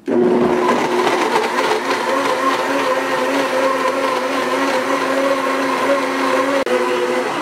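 Blendtec high-speed blender running on high, blending cooked quinoa, dates and water into a thin milk. It starts suddenly and runs with a steady motor whine over liquid churning, with a split-second dropout near the end.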